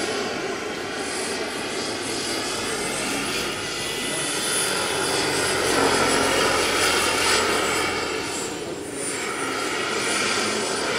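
Turbine-powered model Lama helicopter flying overhead: a steady high turbine whine over rotor and engine noise. It grows louder about halfway through as the helicopter comes nearer, then eases off.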